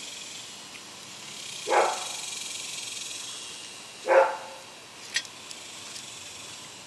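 A dachshund barking twice, two short barks about two and a half seconds apart.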